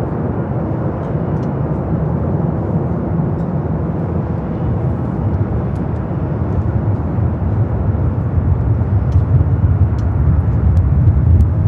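Jet aircraft engines running with a steady, deep noise that grows a little louder near the end.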